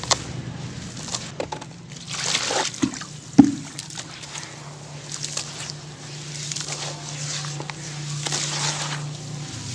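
Crumbled charcoal-cement cones crunching and pattering down into a bowl of water, splashing and sloshing as hands stir the wet mix. There is one sharp knock about three and a half seconds in.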